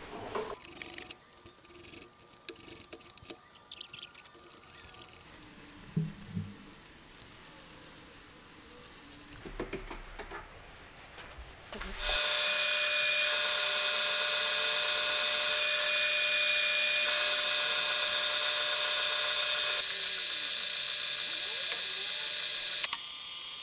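Faint clicks and ticks of a hand tap being turned with a tap wrench in a brass workpiece held in a stopped lathe chuck. About halfway through, a metal lathe starts and runs with a loud, steady whine, spinning the brass workpiece.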